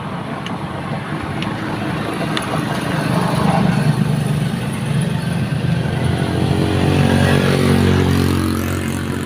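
Motorcycle engine running, its pitch and level rising around six seconds in and easing off again near the end, with a few faint clicks early on.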